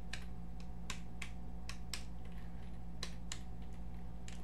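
Computer keyboard being typed on: about a dozen sharp keystroke clicks at an uneven pace, a couple a second, over a steady low electrical hum.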